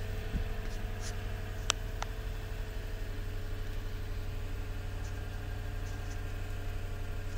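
Steady low hum of the Lexus GX 460's 4.6-litre V8 idling, heard from inside the cabin, with a sharp click a little under two seconds in and a fainter one just after.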